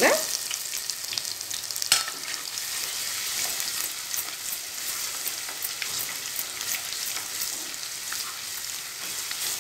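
Crushed garlic frying in hot oil with mustard seeds and curry leaves in a clay pot, a steady sizzle with small crackles, stirred with a wooden spatula. A single sharp knock about two seconds in.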